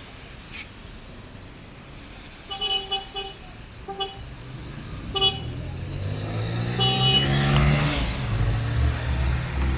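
A vehicle horn gives several short toots, then a motor vehicle drives close past, its engine pitch dropping as it goes by and staying loud afterwards.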